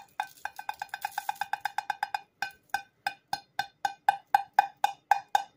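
Rapid taps on a plastic gold pan held over a pocket scale, each giving a short, ringing knock with a clear pitch. They are fast at first, then slow to about four a second from about two seconds in, as the last gold is knocked out onto the paper on the scale.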